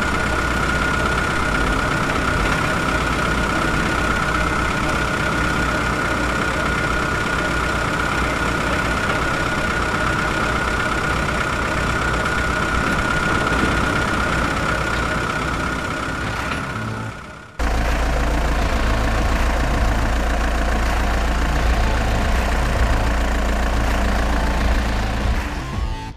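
Engine running steadily, as for the toy construction machines at work, with a steady whine over it; it dips and cuts out about two-thirds of the way through, then starts again at once with a deeper, steadier hum.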